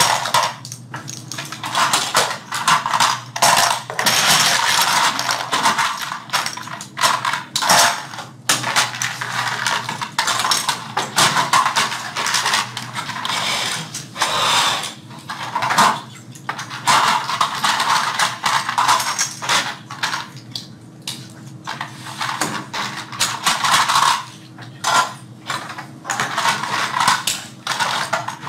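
Continuous clatter and clicking of small toy-airplane parts being handled and fitted together at the work tables, with a faint steady hum underneath.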